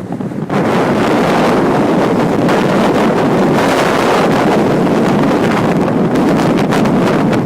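Strong wind buffeting the microphone in loud, continuous noise that jumps up sharply about half a second in.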